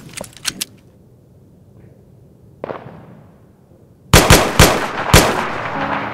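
Rifle gunfire: a few lighter cracks near the start and a single shot a little under three seconds in. Then comes a loud rapid burst of about four shots around four seconds in, ending in a long echoing tail.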